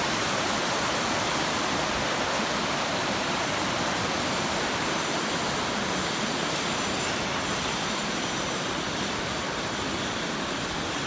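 Swollen river rushing over rocks and rapids: a steady, even rush of water.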